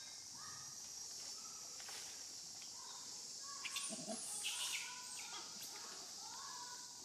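Insects droning steadily at a high pitch, with short chirping calls scattered through and a brief rustle about four seconds in.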